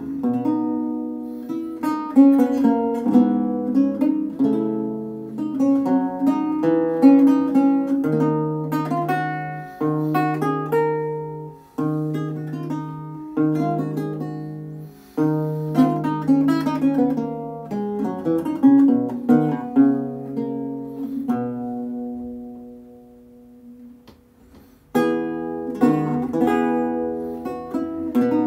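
Solo lute playing a ricercar: plucked melody and chords over held bass notes, with one chord left to ring and die away about three-quarters through before the playing picks up again.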